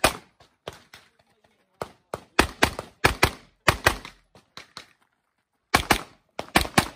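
Rapid pistol fire on a shooting stage: sharp shots, many in quick pairs, with a pause of about a second past the middle before another string.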